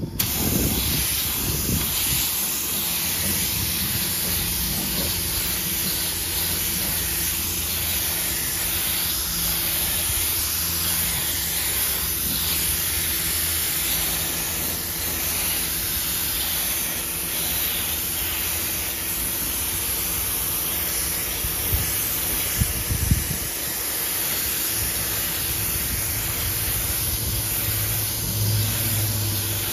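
Gravity-feed compressed-air spray gun hissing steadily as it sprays primer onto car bodywork. A few short knocks come a little past two-thirds of the way through.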